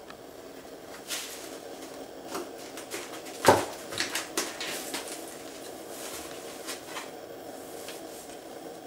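A cat moving about inside a cardboard box, its paws and body scuffing and bumping the cardboard, with one loud knock about three and a half seconds in.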